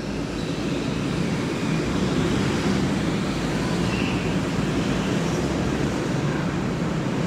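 Go-karts racing around an indoor track: a steady, even rumble of the passing karts, heard through the viewing glass.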